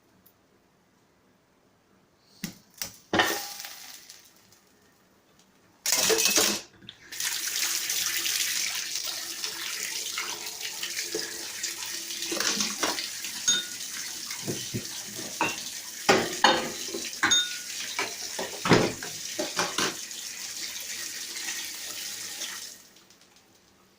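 Kitchen tap running into a sink for about fifteen seconds, with dishes and utensils clinking and knocking through it; a few sharp knocks come before the water starts, and the water cuts off sharply near the end.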